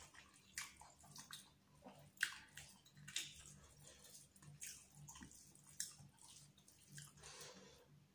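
Faint close-up eating sounds: fingers working and scooping chicken biryani rice on a steel plate, and chewing, heard as soft, irregular clicks with a sharper one about two seconds in.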